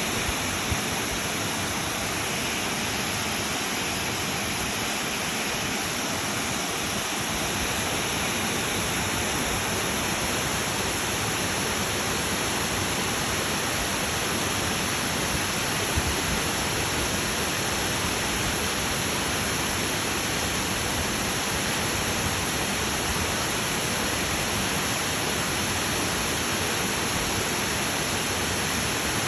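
Rushing mountain water, a steady even roar of a river or falls with no let-up.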